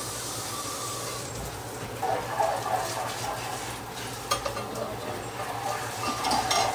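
Sauce simmering in a pot around a mound of uncooked rice, a steady hiss with a few light clicks.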